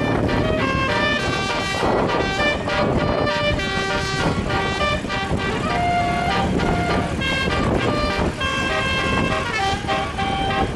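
Basuri telolet horn on a bus playing a melody, several tones sounding together, the notes changing every fraction of a second without a break, over the noise of traffic and the bus.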